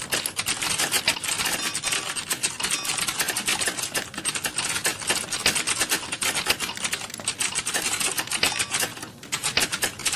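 Computer keyboard being typed on steadily in a timed typing test at about 33 words per minute: a fast, even stream of key clicks, with a brief lull about nine seconds in.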